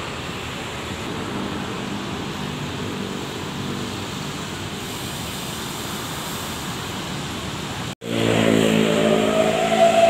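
Mercedes-Benz coach's diesel engine idling steadily. About eight seconds in the sound cuts to the engine running louder and revving as the coach pulls away, with a whine that rises and then falls.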